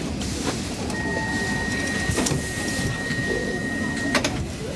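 Inside a Stockholm metro C6 carriage at a platform: a low rumble with a few clicks, a thin steady high tone held for about three seconds, and a sharp knock near the end.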